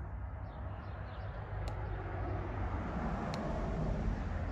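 Steady low rumble of outdoor background noise, with two faint ticks.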